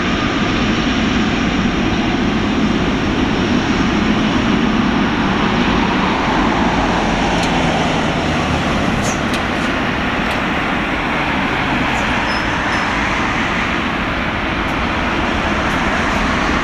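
Boeing 777-200LR's GE90 turbofan engines running as the airliner rolls out along a wet runway after landing: a loud, steady jet rush.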